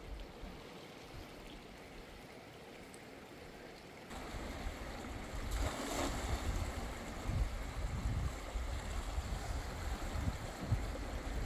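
Faint outdoor hush, then about four seconds in the rush of a fast river, with wind buffeting the microphone. About halfway through, a brief hissing splash as a thrown cast net lands on the water.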